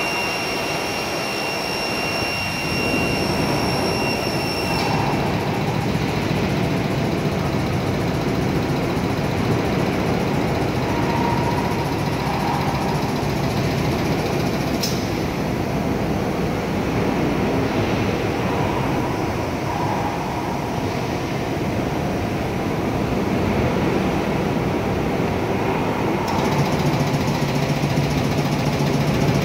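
YFB-DY300 valve test bench's pumps running steadily, a loud even machine drone. A sharp click about halfway through, and a lower steady hum joins near the end as the operator works the panel buttons.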